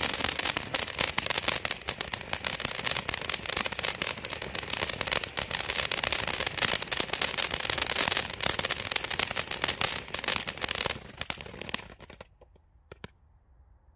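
Pinto 'Casablanca' firework fountain battery burning: a loud, dense hiss of spraying sparks peppered with rapid sharp pops, dying away about eleven to twelve seconds in, leaving only a few faint pops.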